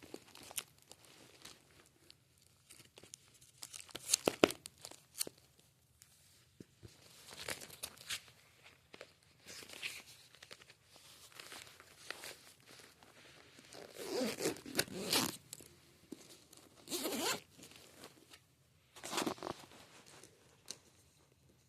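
Plastic and card rustling and crinkling in irregular short bursts with sharp clicks, as trading cards in plastic sleeves are handled. The longest, fullest bursts come about two-thirds of the way through.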